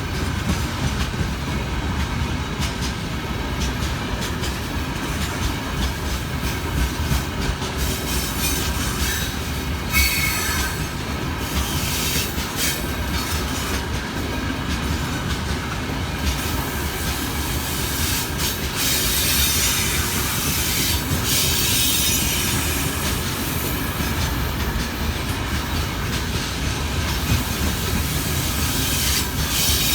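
Freight train of gondola wagons rolling past with a steady rumble, with high-pitched wheel squeal coming and going.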